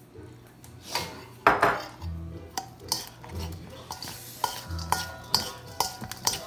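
Metal spoon knocking and scraping against a stainless steel mixing bowl while beef is stirred, each knock leaving a brief metallic ring; the loudest knock comes about a second and a half in.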